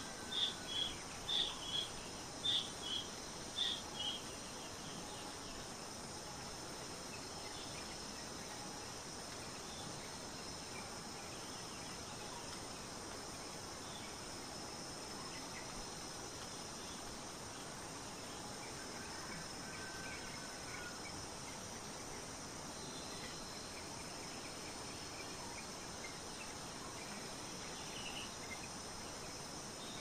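Forest ambience: a steady, high-pitched insect drone, with a bird giving a quick run of sharp high chirps for the first four seconds or so, then only faint scattered chirps.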